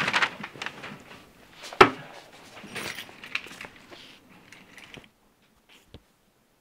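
Hurried rustling of clothes and bedding with a sharp thump about two seconds in, followed by more rustling and light clattering that cuts off suddenly about five seconds in.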